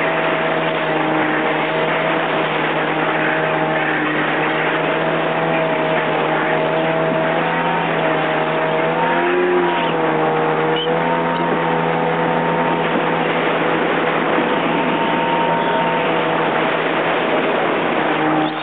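Yamaha jet ski engine running at speed, holding a steady pitch, with a brief dip and recovery in revs about nine to ten seconds in. A constant rush of wind and water runs under it.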